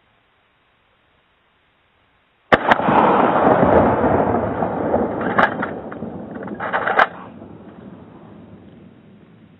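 A single shot from a Remington 870 12-gauge pump shotgun loaded with 00 buckshot, about two and a half seconds in: a sharp blast followed by a long rolling echo that fades away over several seconds. Two sharp clicks come during the fade.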